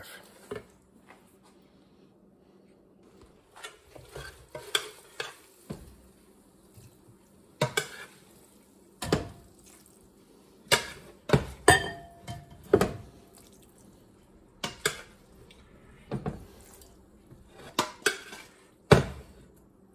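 A metal serving spoon clanking and scraping against a stainless steel pot and a ceramic bowl as pasta is scooped out and served, in irregular knocks about every second or so.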